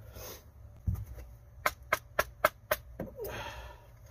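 Hand tools handled at work on a boat's steering helm: a low thump, then a quick run of five sharp clicks, about four a second, and a short hiss.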